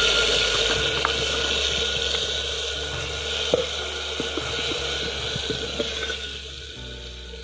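Soaked red chilli masala paste sizzling in hot oil in a stainless steel pot, just added to a mustard-seed and clove tempering; it is the paste starting to fry. The sizzle is loud at first and slowly eases, with a few light clinks of the steel ladle against the pot.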